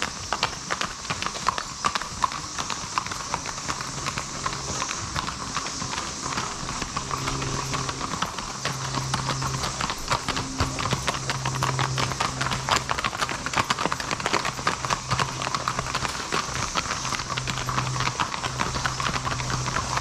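Many horses' hooves clip-clopping on the road as a line of riders walks past, the steps overlapping, over the steady drone of a 13-year periodical cicada chorus. A low hum comes and goes underneath.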